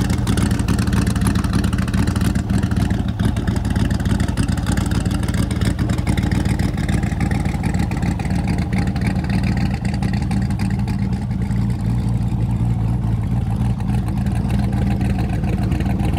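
Twin-turbo 5.3 L LS V8 (an LM7 iron block) swapped into a Range Rover Sport, idling steadily.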